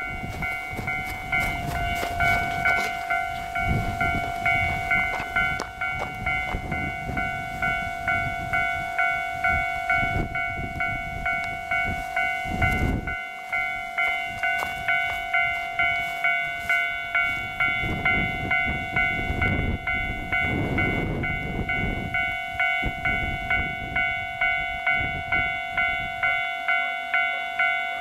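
Electronic warning bell of a Japanese railway level crossing ringing in a steady repeated beat, about one and a half strikes a second, while a train passes through with a rumble that fades out near the end.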